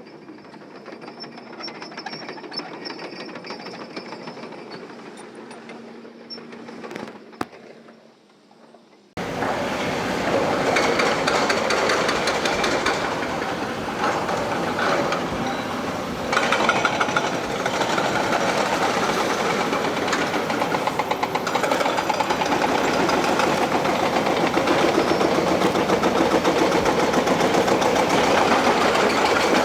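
Excavator at work: a quieter stretch of machine running with a steady low hum, then an abrupt cut about nine seconds in to a much louder, dense mechanical rattle and clatter that carries on steadily.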